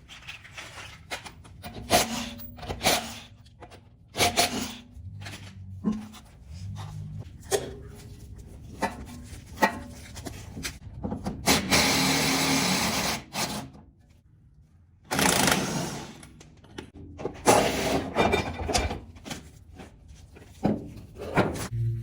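Irregular knocks and clanks of tools on metal parts, with two stretches of rushing noise, each one to two seconds long, in the middle.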